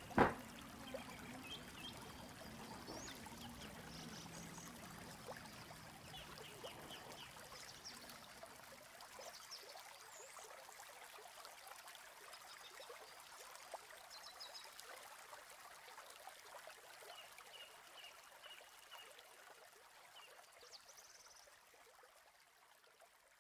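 Steady trickle of running water with scattered short, high chirps over it. There is one sharp knock just at the start, and the whole sound fades out gradually toward the end.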